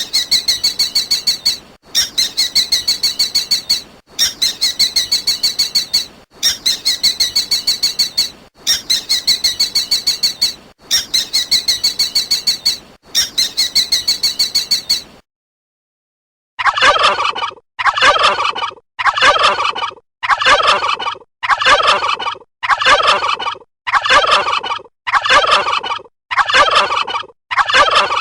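Two recorded animal calls, one after the other. First a high, rapid pulsing trill repeats about every two seconds for some fifteen seconds and stops abruptly. After a short gap a turkey gobbles over and over, about once a second.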